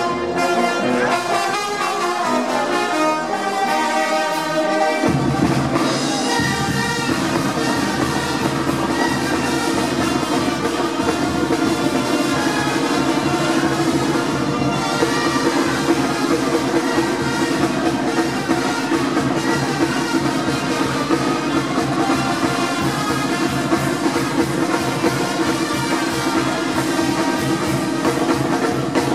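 Brass band music: trumpets and trombones playing a melody, with the low bass end coming in about five seconds in and the full band playing on steadily.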